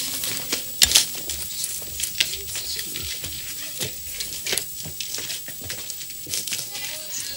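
Irregular footsteps, knocks and rustling of a small group of people moving about on a paved courtyard, with a sharper knock about a second in.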